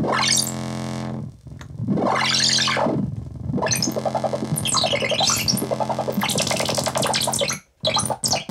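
Roland MC-202 synthesizer played with knob tweaks over a steady low drone: two filter sweeps that open and close, then a fast run of short notes. The sound cuts out briefly near the end.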